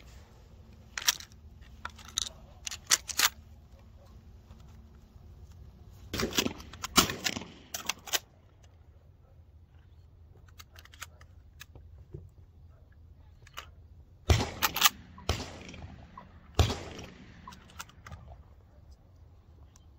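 Shotgun at a dove hunt: a few sharp metallic clicks of the gun being handled in the first few seconds, a cluster of sharp cracks about six seconds in, then two shotgun shots about two seconds apart, each with a fading echo.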